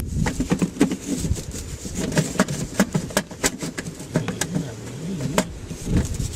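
Irregular clicks and light knocks of the plastic air cleaner housing and its fittings being worked back into place on the engine.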